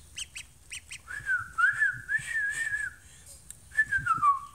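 Newly hatched duckling peeping in a few short, high calls, followed by a louder wavering whistle lasting about two seconds and then a single falling whistle near the end.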